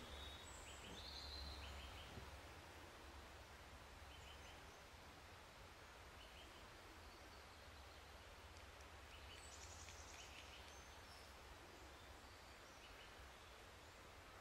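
Near silence: faint scattered bird chirps over a low steady background hum.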